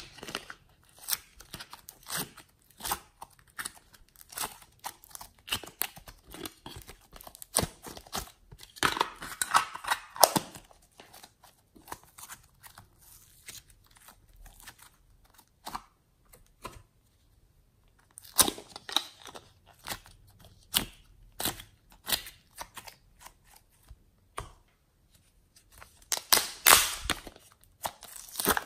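Glossy slime being pressed, stretched and folded by hand, making sticky crackles and clicks in bursts with short pauses. Near the end, soft clay is pushed out of a thin plastic cup.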